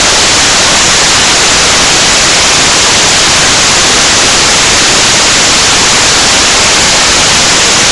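Loud, steady static hiss like white noise across the whole range, switching on and cutting off abruptly. It reads as a burst of electronic noise in the audio track, not a sound of the scene.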